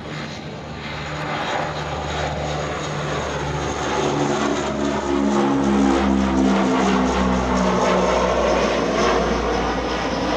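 C-160 Transall's twin Rolls-Royce Tyne turboprops droning in a low fly-past, the propellers giving a steady pitched hum over the turbine noise. It grows louder as the aircraft comes overhead, loudest about halfway through, then eases slightly.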